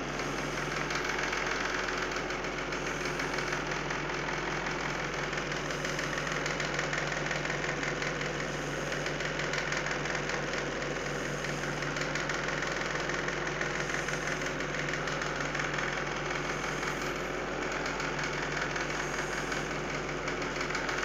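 Steady mechanical hum of a small motor running evenly, with a fine fast rattle over a low drone.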